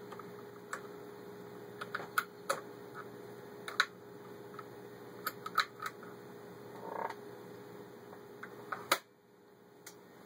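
Scattered, irregular clicks and knocks of parts being handled on a vintage Singer 500A sewing machine, as its cam and controls are worked, over a steady faint hum; one louder click near the end.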